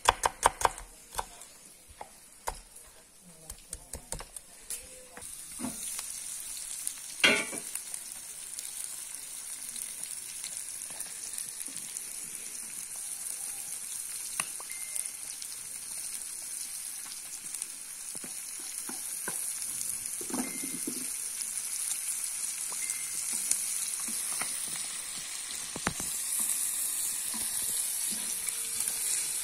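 A knife chopping onion against a wooden cutting board, sharp taps in the first few seconds. Then lamb liver, offal and onion frying on a hot steel saj over a wood fire: a steady sizzle with a wooden spatula stirring and scraping, the sizzle growing louder near the end.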